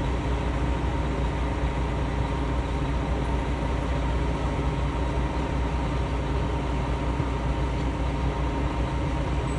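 Steady rumble of traffic from engines idling and crawling in a jammed street, with an even low drone and no separate horn blasts standing out.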